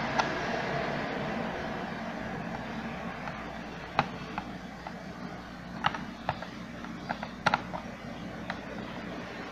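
Scattered sharp clicks and taps of a screwdriver and plastic parts as screws are worked out of a steam-iron station's plastic housing, over steady background noise with a faint low hum.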